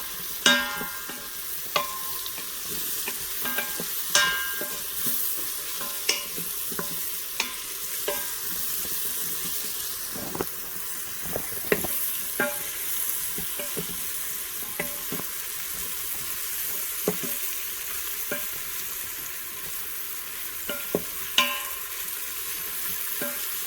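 Sliced baby bella mushrooms sizzling in butter in an Instant Pot's inner pot. A utensil stirs them and now and then clinks against the metal pot with a short ring.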